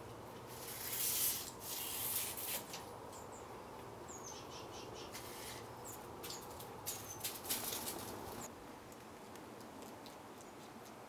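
Outdoor ambience: short, high chirps of small birds a few times, over bursts of rustling, the loudest about a second in and again around seven to eight seconds in.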